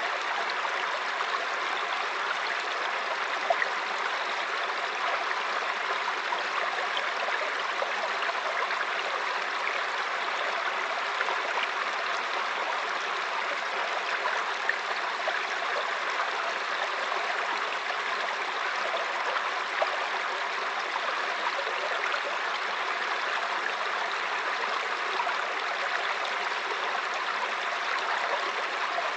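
Mountain stream flowing over rocks: a steady rush and babble of water, with small splashes and gurgles now and then.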